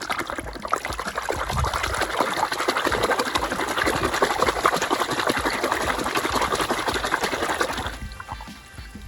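Water running and splashing, starting suddenly and cutting off about eight seconds in.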